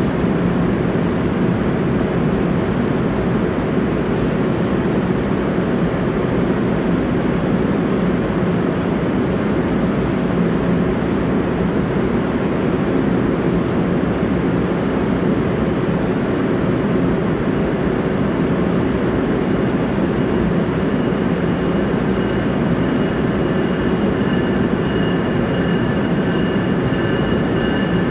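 Steady rumble of an NJ Transit Bombardier bilevel commuter train pulling away down the station track. Thin, high wheel-squeal tones come in about two-thirds of the way through.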